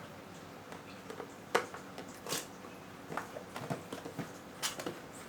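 Cardboard and plastic packaging of an AMD Ryzen 3 2200G retail box being handled and opened by hand. Scattered clicks, taps and short rustles, the sharpest click about one and a half seconds in.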